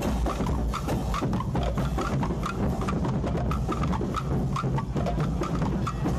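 Parade drums beating a brisk, steady rhythm, with short high notes sounding over the drumming.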